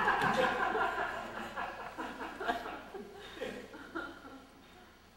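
Theatre audience laughing, the laughter dying away over a few seconds into scattered chuckles.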